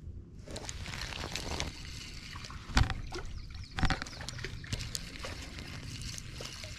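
Clicks and rustles of a spinning rod and reel being handled close up as a cork float is cast and worked, with two sharp knocks about three and four seconds in.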